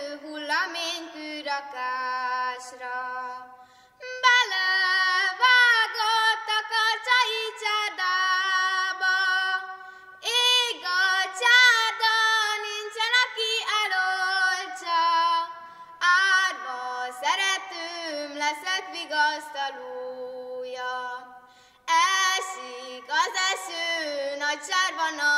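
A young girl singing solo, unaccompanied, in sustained phrases with vibrato and short breaths between them.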